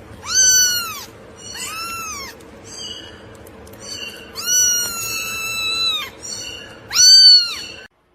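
A cat meowing five times, high-pitched, each call rising and falling, the fourth drawn out much longer than the others; the sound cuts off abruptly near the end.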